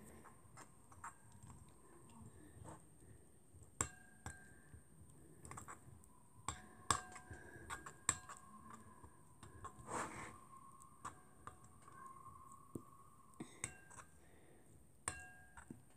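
Faint, irregular clicks and light clinks of a spoon against a mixing bowl as glue and red colouring are stirred together, some taps ringing briefly.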